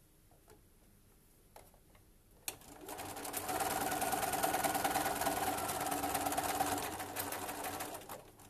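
Domestic sewing machine stitching a seam in one continuous run, starting about two and a half seconds in after a couple of light clicks and slowing to a stop near the end.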